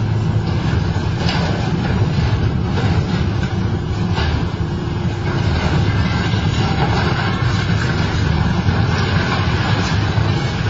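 Hydraulic excavator's diesel engine running steadily under load, with a few sharp knocks in the first four seconds or so.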